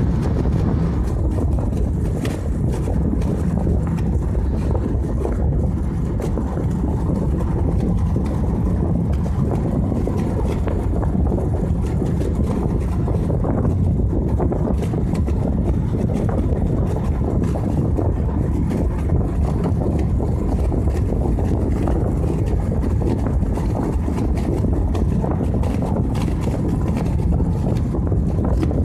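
Steady low rumble of wind and road noise from a moving vehicle, even throughout with no pitch changes.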